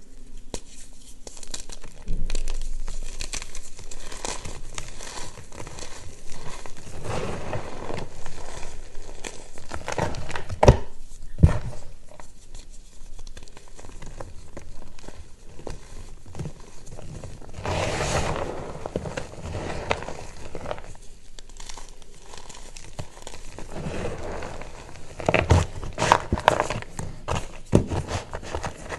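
Reformed gym chalk bars crushed and crumbled by hand: dry, crunchy cracking of the blocks and crumbling chunks with powdery rustling, coming in uneven spells. A few sharper snaps stand out about ten seconds in and again near the end.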